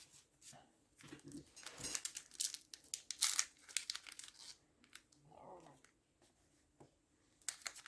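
Trading card pack wrapper being torn open and crinkled, with a run of crackling rustles over a couple of seconds, then quieter handling and more crinkling near the end.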